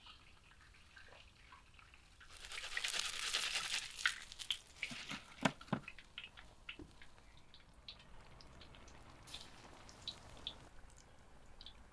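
Hot oil deep-frying battered chicken, hissing in a loud sizzle for about two seconds near the start as a mesh strainer of fried pieces is worked in the pot. A couple of sharp knocks come in the middle, then scattered pops and crackles of the frying oil.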